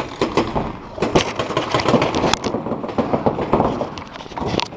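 Paintball markers firing rapid strings of reball shots, several guns overlapping in bursts.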